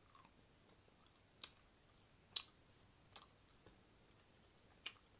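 Wet mouth clicks of tongue and lips close to a microphone: four or five sharp, separate clicks with pauses between, the loudest about halfway through.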